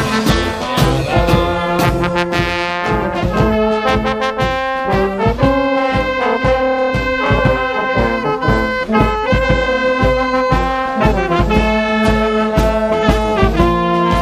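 A street brass band playing an upbeat swinging tune live: trumpets, trombone, saxophones, euphonium and sousaphone over a steady beat of bass drum and clashed hand cymbals.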